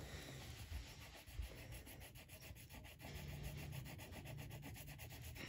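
Green crayon rubbed quickly back and forth on paper laid over a hardcover book, a faint, steady scratchy scrubbing made of many rapid strokes while colouring in.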